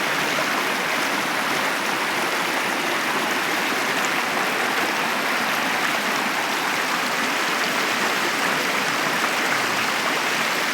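River water rushing steadily over rapids, an even hiss with no breaks.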